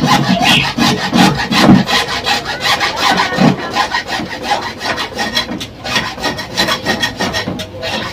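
A hacksaw blade sawing through blue PVC water pipe in rapid, repeated back-and-forth strokes.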